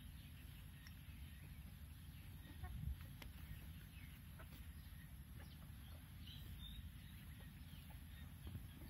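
Chickens foraging and pecking at the ground, with faint, soft clucks and scattered light clicks over a steady low rumble.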